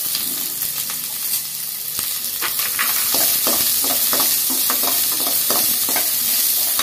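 Chopped onions sizzling in hot oil in a non-stick kadai, a steady hiss. From about two seconds in, a perforated steel spoon stirs and scrapes them against the pan in quick strokes, about three a second.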